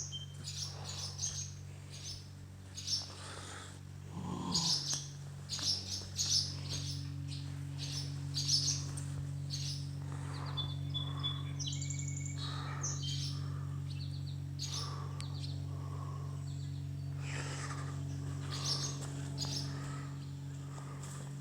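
Small songbirds chirping and trilling again and again, over a steady low hum.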